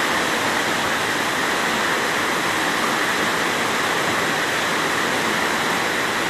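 Muddy floodwater rushing past in a steady, unbroken torrent.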